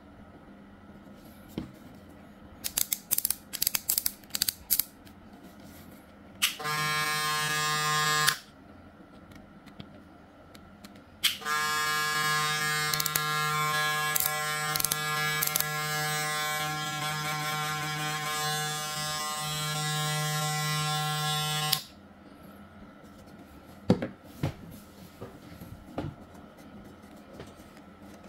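TPOB hair clipper with a freshly fitted XO blade switched on for a short burst, then run again for about ten seconds with a steady buzz and switched off, a test run of the new blade. Plastic handling clicks come before and after the runs.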